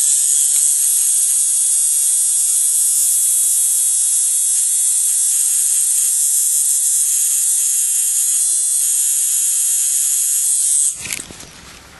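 Electric tattoo machine buzzing steadily as the needle works on skin, a constant high whirring hum. It cuts off abruptly near the end.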